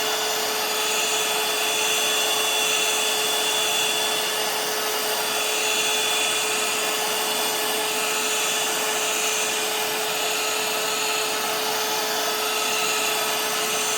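Ungar heat gun running steadily on its high setting, blowing hot air: a constant fan rush with a steady hum underneath.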